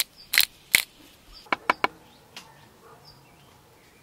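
Salt-and-pepper grinder being twisted over food: two short grinding rasps, then several quick clicks.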